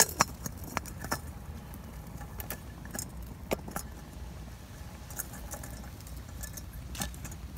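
Scattered sharp metal clinks and clicks from a lidded steel pot and its handle being handled as it is taken off the small wood-fired firebox, the loudest at the very start, over a low steady rumble.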